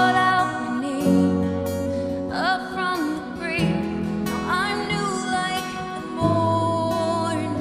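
Worship music: acoustic guitar playing slow, sustained chords that change every few seconds, with a voice singing long, wavering notes without clear words over it.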